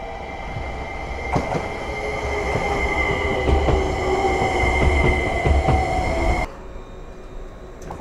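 A train running on rails, with a steady high whine or squeal and wheels clacking, growing louder. The sound cuts off abruptly about six and a half seconds in, giving way to quieter background.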